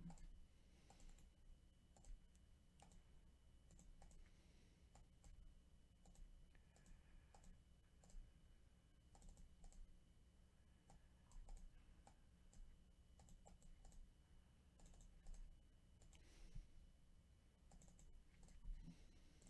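Faint, irregular clicks of a computer mouse and keyboard, over a low steady hum.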